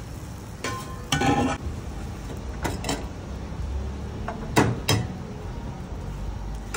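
Metal utensils clinking and knocking on a dosa griddle, about five short strikes and scrapes, the loudest about a second in, over a low steady hum.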